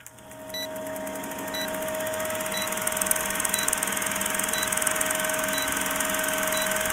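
Old-film countdown leader sound effect: a film projector's fast steady rattle and hiss over a steady hum tone, with a short high beep once a second, seven in all, as the numbers count down. It fades in over the first couple of seconds.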